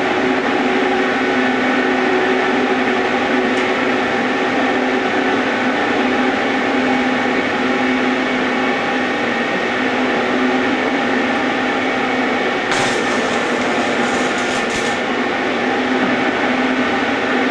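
Steady machine running noise with a low hum, from metalworking equipment, with a harsher, hissier stretch lasting about two seconds past the middle.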